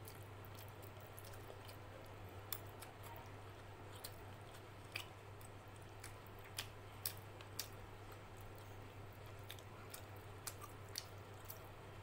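Fingers mixing rice, chicken curry and crunchy sev on a steel plate: soft, wet squishing with scattered sharp clicks and crackles, a handful of them standing out, over a steady low hum.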